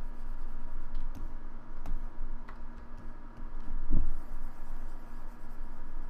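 Computer mouse being clicked and moved on a desk: a few sharp clicks and faint rubbing, with a louder dull thump about four seconds in, over a steady hum and low rumble.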